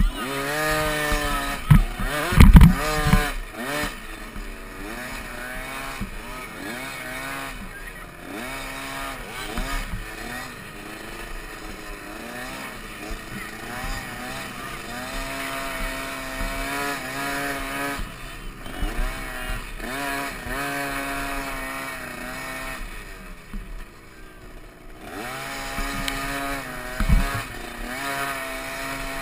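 Small pee-wee motocross bike's engine revving up and down over and over as it is raced round a dirt track, heard from a helmet-mounted camera. A few loud knocks come about two to three seconds in, and the engine drops back for a couple of seconds near the end.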